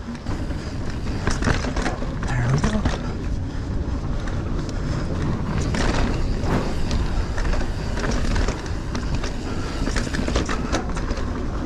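Mountain bike riding over dirt singletrack: tyres rolling and the bike rattling over bumps, with many short clatters throughout.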